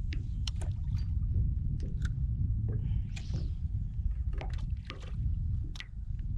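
A small aluminium boat drifting on choppy water: a steady low rumble of wind on the microphone, with scattered sharp knocks and small splashes of water against the hull.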